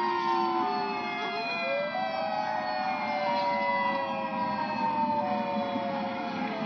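Outdoor tornado warning sirens sounding at several pitches at once, the tones sliding slowly downward, with one tone rising about a second and a half in, over a steady background noise.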